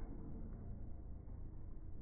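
Faint, muffled outdoor background noise: a low rumble with no distinct events.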